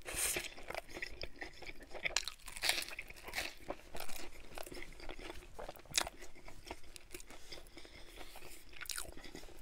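Close-miked biting and chewing of a toasted grilled cheese and bacon sandwich: crisp, irregular crunches, the loudest just after the start and around three, four and six seconds in.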